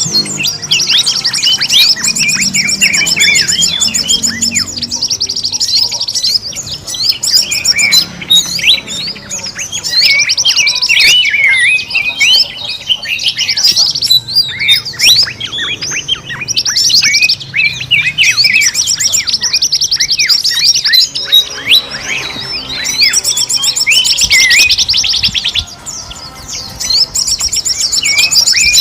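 Many forest birds chirping and calling at once in a busy, noisy chorus, with fast high trills that come and go several times, used as a bird-lure (pikat) call.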